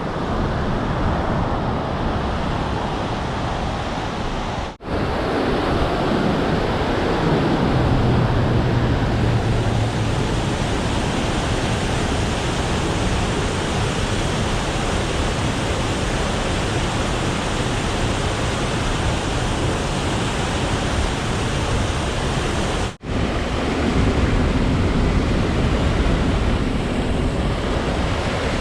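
Fast-flowing creek, swollen with snowmelt, giving a loud, steady rush of water that cuts out briefly twice.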